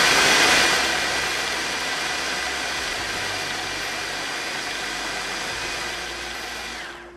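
Electric food processor running, shredding cooked chicken into fine threads: a steady motor-and-blade whirr that eases slightly about a second in and winds down near the end as it is switched off.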